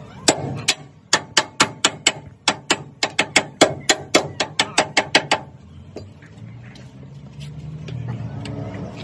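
Hammer blows on steel at a truck's leaf-spring shackle, a quick run of about twenty strikes at roughly four a second that stops about five seconds in. A low steady hum follows.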